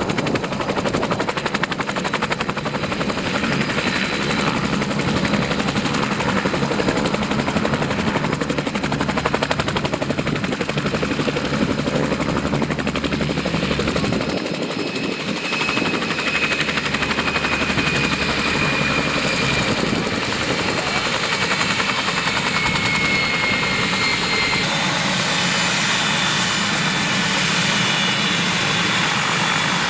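Bell 47 G-3B-1 Soloy helicopter running steadily, its rotor and turbine engine heard as it sets down and sits on the ground with the rotor turning. In the second half a faint high whine slides slowly down in pitch.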